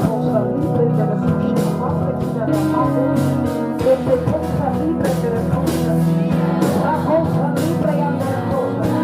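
Music: a song with instruments, a steady beat and a singing voice.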